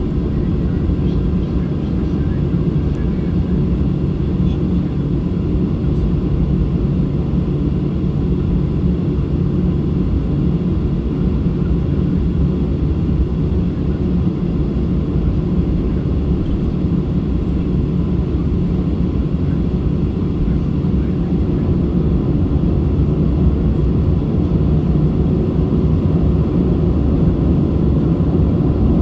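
Steady low cabin hum of a Boeing 737-600 airliner, a mix of engine and airflow noise heard from inside the passenger cabin, growing slightly louder near the end.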